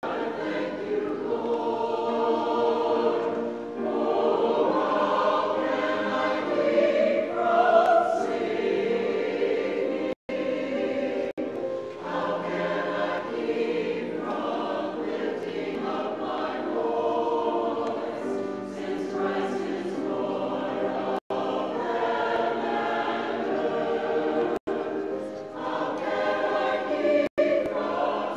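A mixed choir of men's and women's voices singing together. The sound cuts out briefly a handful of times, like glitches in the recording.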